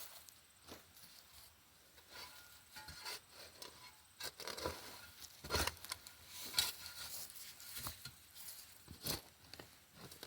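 Irregular scraping and rustling of digging in garden soil for potatoes, with a few sharper knocks about halfway through.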